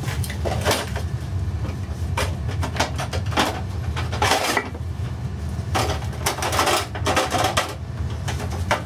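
Metal hand tools clattering and knocking in an irregular run of clanks as tools are rummaged through to find a set of pliers, over a steady low hum.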